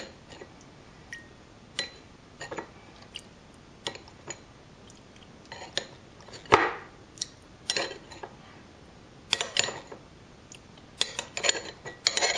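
Scattered clinks and knocks of small containers and utensils being handled while tea tree oil and water are measured out for a diluted mixture; the loudest knock comes a little past halfway, with a quick cluster near the end.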